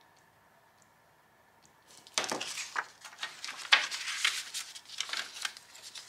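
Paper cash envelopes and a paper budget sheet rustling and crinkling as they are handled and slid together, starting about two seconds in.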